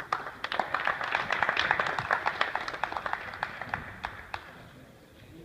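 A small crowd clapping, starting suddenly and thinning out after about four seconds.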